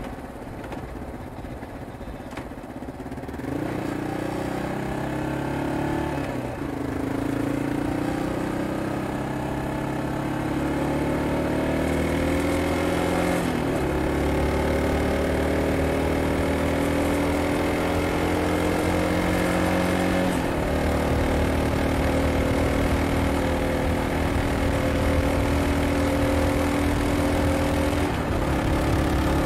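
Yamaha XT225 Serow's air-cooled single-cylinder four-stroke engine and exhaust pulling away from low speed a few seconds in and accelerating up through the gears, the pitch climbing in each gear and dropping at three upshifts, then running steadily at cruising speed.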